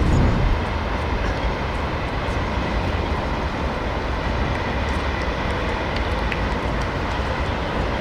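A steady low noise, heaviest in the bass, with no clear rhythm or pitch.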